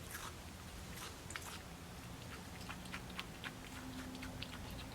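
Squirrel monkey chewing and biting juicy watermelon: a faint, irregular string of small smacking clicks.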